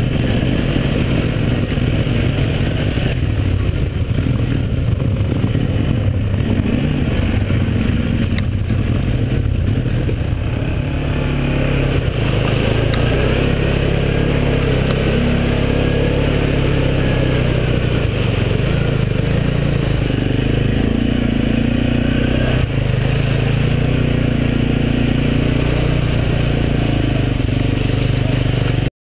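Quad (ATV) engine running under throttle as it rides a muddy trail, heard from on board with a steady rushing noise over it; the engine note holds steadier through the middle and the sound cuts off suddenly near the end.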